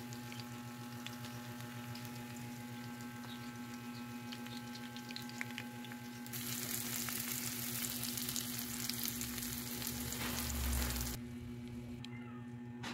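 Tilapia frying in a pan of hot oil, a steady sizzle with small pops. The sizzle grows much louder about six seconds in and drops back about eleven seconds in, over a steady hum.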